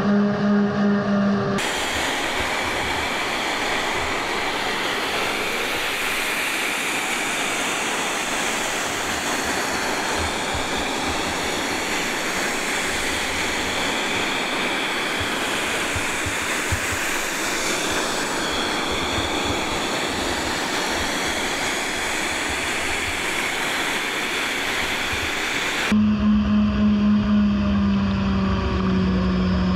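Steady motor whine from the RC airboat's two brushless-motor ducted fans. It cuts to a long stretch of even rushing noise with no clear tone, then the fan whine returns near the end along with water spray off the hull.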